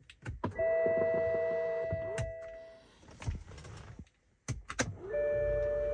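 Ignition of a 2007 BMW X5 switched back on after the 15-second wait during module coding: a few clicks, then the dashboard warning chime rings a steady bell-like tone that fades over about two seconds. A few more clicks follow, and the chime sounds again about five seconds in.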